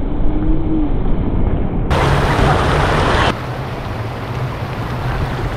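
Wind rushing over the microphone together with a steady low engine hum, broken by abrupt cuts: a louder rush comes in about two seconds in and drops back a second and a half later.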